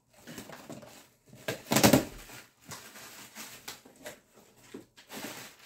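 A cardboard box being opened by hand, its flaps folded back and the plastic packing inside rustled and crinkled. The loudest crinkle comes about two seconds in, with smaller rustles and clicks after it.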